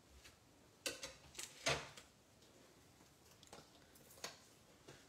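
A sheet of foam adhesive dimensionals being picked up and handled over a craft mat: a few short rustles and light knocks, the loudest about a second and a half in.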